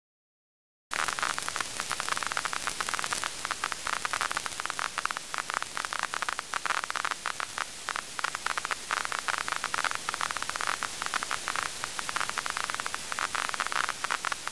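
Crackling static hiss that cuts in about a second in after a moment of dead silence and then runs steadily, dense with tiny crackles.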